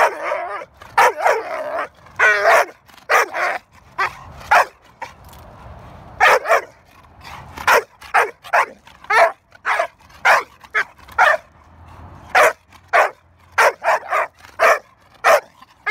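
American Pit Bull Terrier barking over and over, short barks about one or two a second. Near the start there are a few longer, wavering yips.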